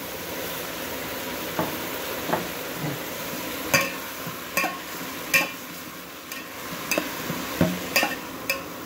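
Metal fork stirring rehydrated dried mushrooms, tomatoes and onions in a metal saucepan, scraping and knocking against the pan several times, over a steady sizzle of frying.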